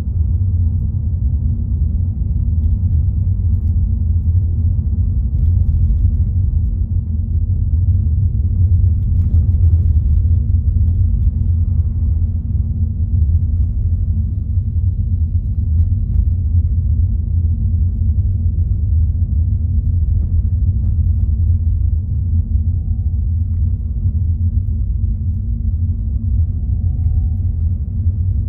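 Steady low rumble of a car driving, engine and tyre noise heard from inside the cabin, with faint shifting whines near the end.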